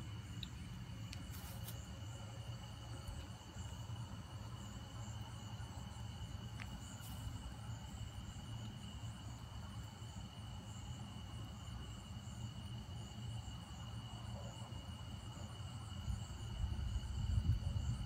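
Crickets trilling steadily, one even high-pitched tone with no breaks. A low rumble underneath grows louder near the end.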